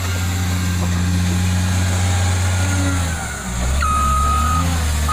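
Caterpillar wheel loader's diesel engine running steadily under load while carrying a large log, dipping briefly about three seconds in and then picking up again. Near the end its reversing alarm sounds one steady beep.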